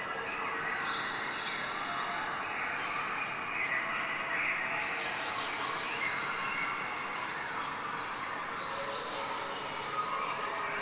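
Steady outdoor background noise with faint bird calls.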